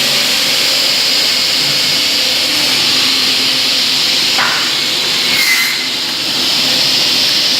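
Pallet slat cutting machine running steadily with a loud, even whooshing noise, with a single knock about four and a half seconds in.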